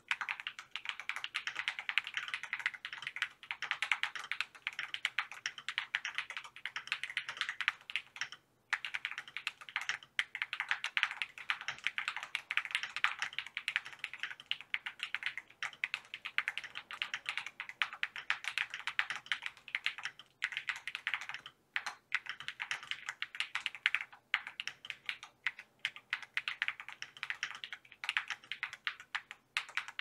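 Steady fast typing on a mechanical keyboard fitted with Gateron Baby Kangaroo tactile switches: a dense run of keystroke clacks with a few short pauses, the longest about eight and a half seconds in.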